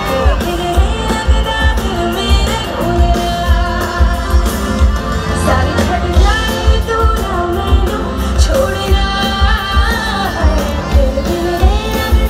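Live pop concert through a large PA: a woman singing a melody into a microphone over amplified backing music with a heavy pulsing bass.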